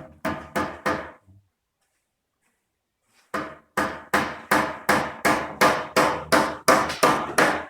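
Hammer driving nails into wood framing. A few quick blows come first, then a pause of about two seconds, then a steady run of blows at about three a second.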